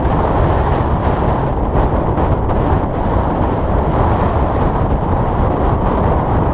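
Strong wind buffeting the microphone: a loud, steady low rush with no breaks.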